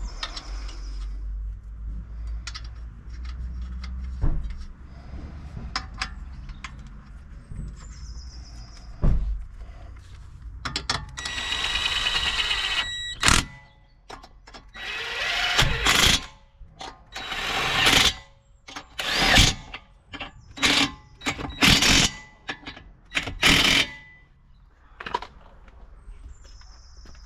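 Handheld power tool, of the impact wrench or drill kind, run for about two seconds and then in a string of short bursts, with scattered metal clicks and knocks of work on the car.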